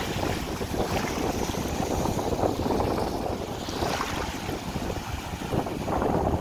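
Wind buffeting the microphone, with small waves washing up over the sand and swelling twice.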